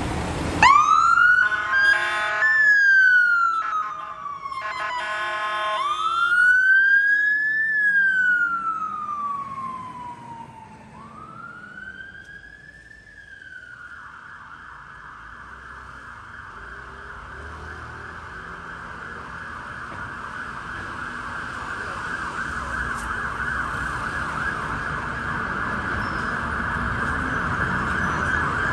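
Fire engine siren switching on and wailing in long rising-and-falling sweeps, with two blasts of the air horn in the first few seconds, fading as the engine pulls away. From about 14 seconds in, a fast, steady siren yelp takes over and grows gradually louder.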